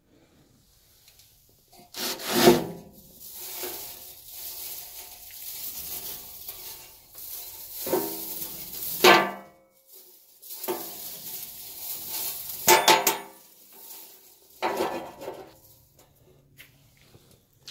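Fabric rubbing and scuffing against a phone's microphone as the phone is carried against the body, with several loud rasping swells about 2, 8, 9, 13 and 15 seconds in.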